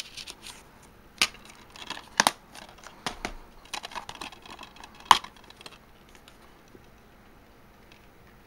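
A plastic DVD case being handled and turned over: scattered sharp clicks and knocks of the case with rustling of its paper insert, the loudest knock about five seconds in.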